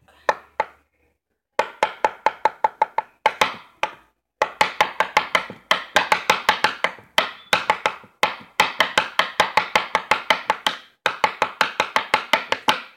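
A pencil stabbing rapidly on a tabletop between the fingers of a spread hand in the knife game: quick, even taps about five or six a second. The taps come in runs of a few seconds, broken by brief pauses.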